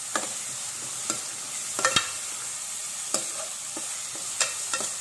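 Chopped onions and curry leaves sizzling in hot oil in a pan as they are sautéed, with a spatula scraping and knocking against the pan about seven times while stirring.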